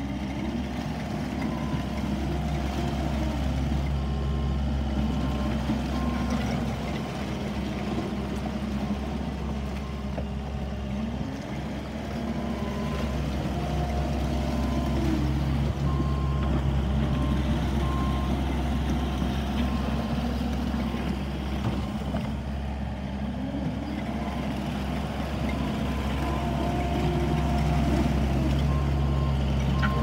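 2017 Takeuchi TL8CRN tracked skid steer running, its diesel engine steady under a drive whine that rises and falls every few seconds as the machine moves through mud and water. Its backup alarm beeps in three short stretches: a few seconds in, about midway, and near the end.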